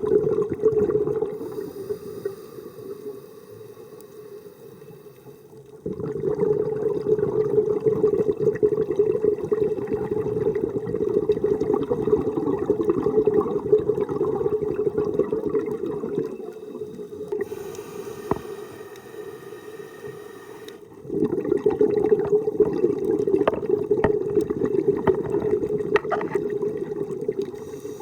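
Scuba diver breathing through a regulator underwater: long rushes of exhaled bubbles lasting several seconds each, alternating with quieter stretches between breaths.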